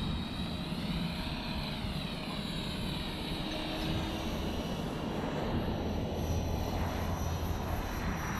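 Walkera V450D03 electric RC helicopter's brushless motor and rotor whining in flight. The pitch of the whine slides up and down as it manoeuvres.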